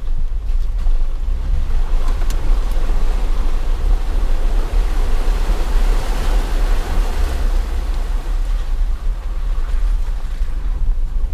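Vehicle engine rumbling low and steady while the tyres churn through water on a flooded dirt trail. The splashing swells to its loudest about halfway through and eases off toward the end.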